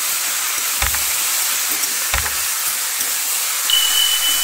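Shredded banana stem, potatoes and eggplant frying in mustard oil in a metal kadai: a steady sizzle, with a metal spatula knocking against the pan twice. A thin steady high tone comes in near the end.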